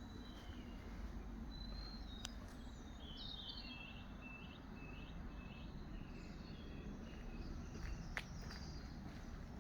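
A small bird chirping a rapid series of short high notes in the first half, over a steady low outdoor rumble, with a couple of sharp clicks.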